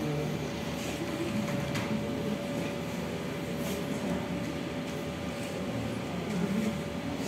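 Steady room noise with a faint steady hum and a few soft clicks.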